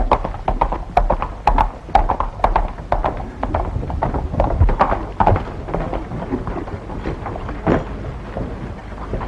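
Hoofbeats of horses on a dirt street, a quick irregular clatter that thins out after about five seconds.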